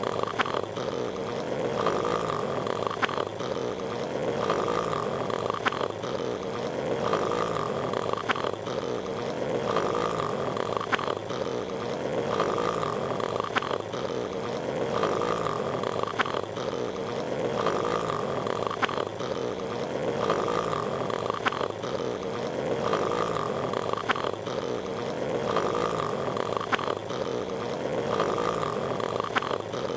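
Patrick Star's cartoon snoring from SpongeBob SquarePants, looped. A rough, rumbling snore repeats in an even cycle of about a second and a half, each cycle carrying a brief higher tone and faint ticks.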